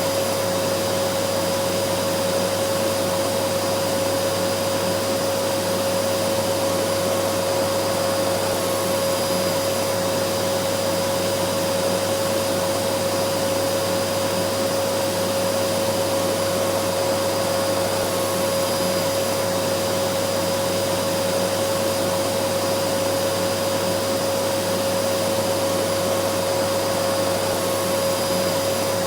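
Vacuum cleaner running steadily at constant speed: an even rush of air with a steady motor whine, unchanging throughout.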